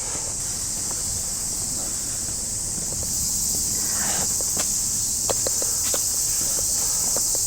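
Cicadas buzzing in a steady high-pitched drone that grows louder about three seconds in, over the light clicks of footsteps on a path.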